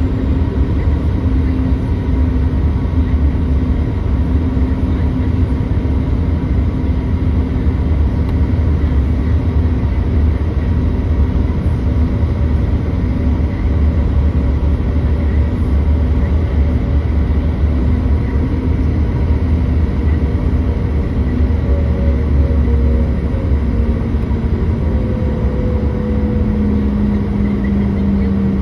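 CRJ200 regional jet's twin rear-mounted GE CF34 turbofans running steadily with a deep rumble and a few steady whining tones. Near the end the whine drops slightly in pitch.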